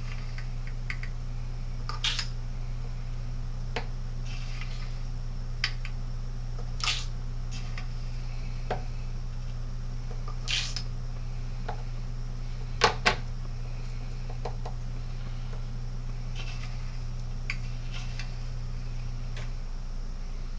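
Scattered light clicks, clinks and short scrapes of a spoon and funnel being handled while wax is poured, with two sharp clicks close together about halfway through, over a steady low hum.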